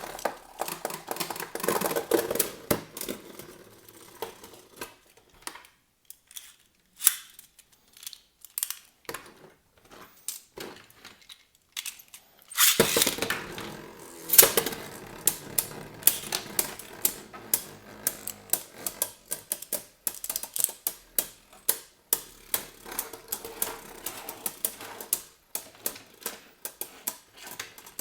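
Beyblade Burst spinning tops clashing in a plastic stadium: rapid clicking and clattering of plastic and metal tops striking each other and the walls. The clatter thins to a few sparse clicks for several seconds in the middle, then starts up loudly again about thirteen seconds in and keeps going dense.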